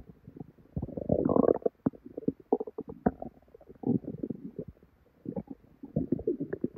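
Human stomach and intestines gurgling and bubbling in irregular stretches with scattered small pops, the longest and loudest gurgle about a second in: belly rumbling during painful bloating.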